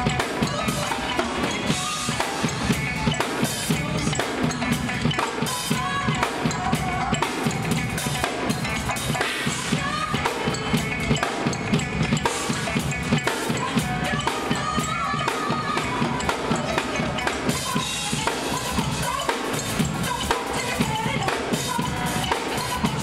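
Drum kit played continuously: kick drum, snare and cymbals struck in a fast, dense pattern.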